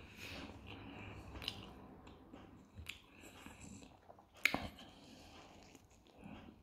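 Close-up chewing and biting of a bread-wrapped grilled meat patty (pljeskavica), with wet mouth sounds and small clicks throughout. A sharp click about four and a half seconds in is the loudest sound.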